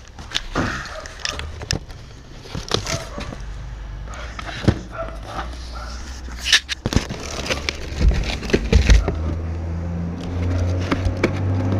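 Handling noise from unpacking motorcycle exhaust parts: scattered clicks, knocks and rustling of packaging and metal pieces. Over the last couple of seconds a low steady hum with a few held tones comes in.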